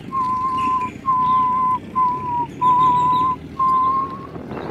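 A man whistling a string of five long, steady notes at about the same pitch, with short breaks between them.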